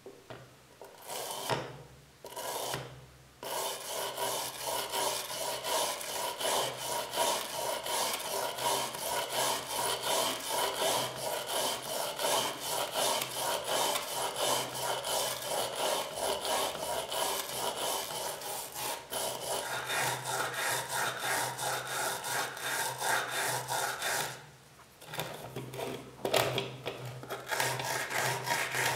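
Small steel wire brush scrubbing rust off an old iron areca nut cutter in rapid back-and-forth strokes. The brushing stops briefly a couple of seconds in and again near the end.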